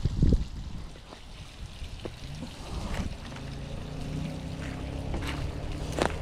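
Water running over a low dam, with scattered footstep clicks and a loud low bump on the microphone near the start. A low steady hum comes in a couple of seconds in.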